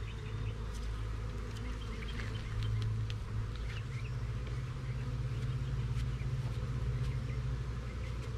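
Honeybees buzzing around an opened hive: a steady low hum, with scattered faint ticks.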